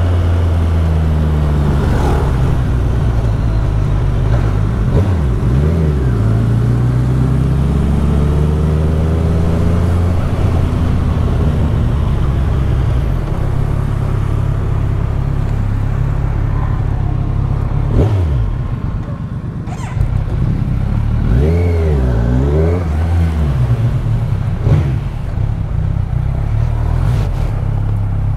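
Kawasaki Z1000SX (Ninja 1000) inline-four engine running at town speeds, its pitch rising and falling several times with throttle and gear changes. A sharp click comes about two-thirds of the way through, followed by a brief drop in engine level.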